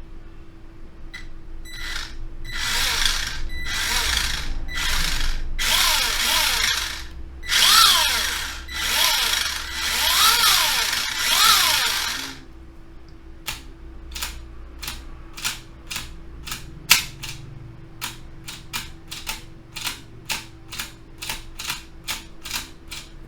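Small electric screwdriver whirring in a series of short runs, its pitch rising and falling within each run, followed by a string of sharp separate clicks about one or two a second.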